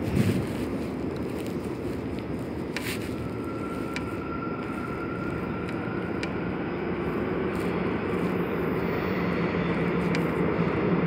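Busan Metro Line 1 subway train approaching through the tunnel: a low steady rumble that grows slowly louder over the last few seconds, with a single thump just after the start.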